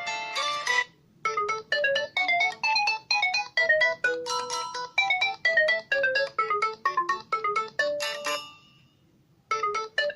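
LG K40S phone ringtone: a quick melody of short, bright, separate notes, about three or four a second, ending on a fading note. It starts over near the end.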